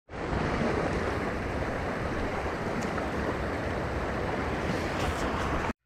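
Shallow river running over stones, a steady rushing noise, with wind rumbling on the microphone. It cuts off suddenly near the end.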